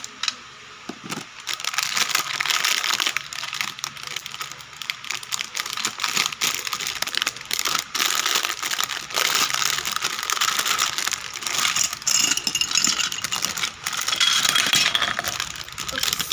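Plastic Play-Doh playset parts and packaging handled close to the microphone: a steady stream of irregular clicks and rattles with rustling.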